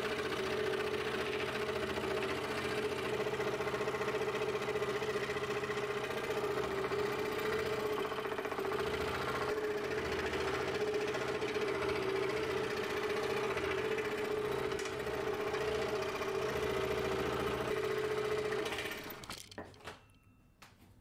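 Scroll saw running steadily with a strong hum, its reciprocating blade cutting through a block of padauk wood. The sound dies away near the end as the saw stops.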